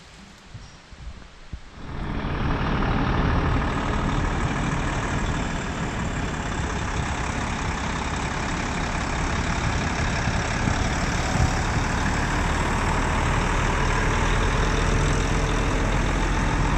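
Heavy diesel truck engine running as the rig pulls a three-axle trailer slowly past at close range, starting abruptly about two seconds in and holding steady. Before that, only faint background.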